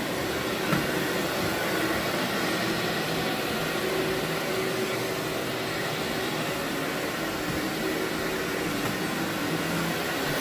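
Vacuum cleaner running steadily on carpet, an even motor drone with no break.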